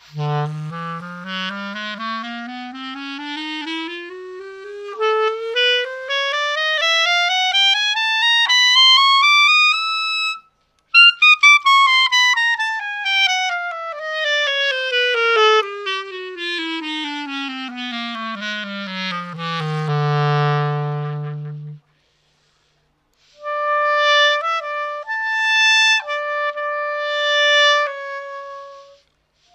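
Schenkelaars wooden clarinet played solo: a scale rising step by step from the bottom of its range for about ten seconds, then descending back down to a held lowest note. After a short pause it plays a short phrase of a few notes in the middle register.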